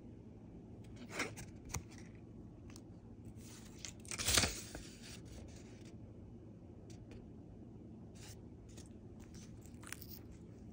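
Handling noise of a plastic unlock-chip carrier card: scattered small clicks and rubs, with one louder scraping rustle about four seconds in.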